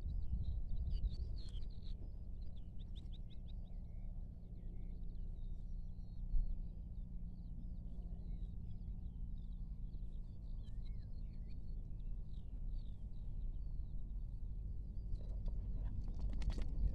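Small birds chirping and twittering in short, scattered calls over a steady low background rumble. Near the end there is a run of sharp clicks.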